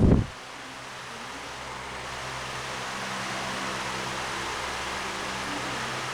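1991 Windmere DF-16 16-inch table fan running on medium: a steady rush of air with a low motor hum. Wind buffeting on the microphone cuts off abruptly just after the start, and the fan's sound then slowly grows louder.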